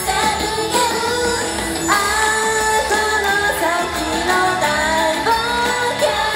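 Japanese idol pop song performed live: a female voice singing the melody into a handheld microphone over pop music, at a steady level.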